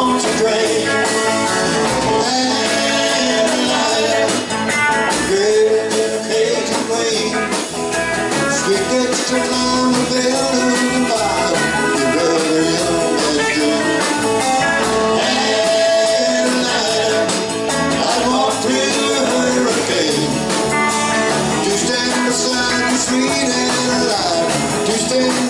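Live country rock band playing: electric guitars, bass guitar and a drum kit.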